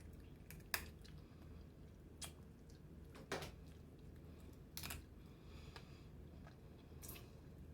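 Close-up eating sounds: chewing, with about five sharp crackles and clicks spread out as boiled blue crab shell is picked apart, over a low steady hum.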